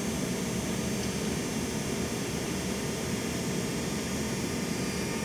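Steady machine noise: a continuous even hum with hiss over it, unchanging throughout.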